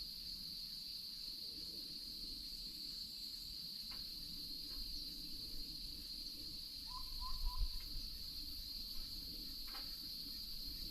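Steady high-pitched insect chorus droning without a break, with a short run of three or four brief calls about seven seconds in.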